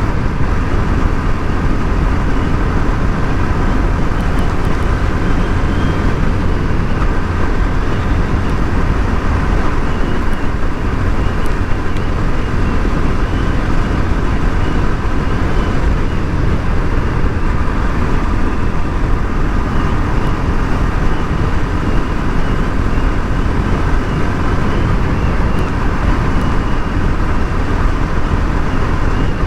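Bajaj Pulsar RS 200 single-cylinder engine running at a steady cruise under heavy wind rumble from riding, with no revving or gear changes.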